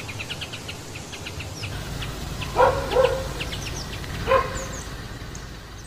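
A dog barking three short times, two in quick succession about two and a half seconds in and a third about a second later, over birds chirping throughout.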